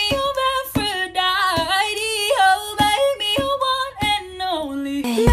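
Background music: a woman's voice singing a melody over a few sparse, sharp beats.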